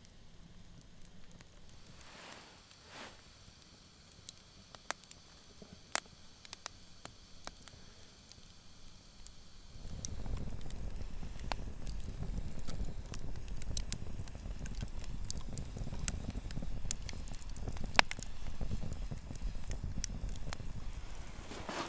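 Campfire crackling, with scattered sharp pops and snaps. A low rushing noise comes in about ten seconds in and continues under the pops.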